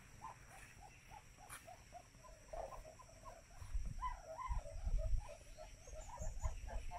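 Bird calling in a quick series of short chirps, about three a second, louder in the middle and second half, with a few low thumps around the middle.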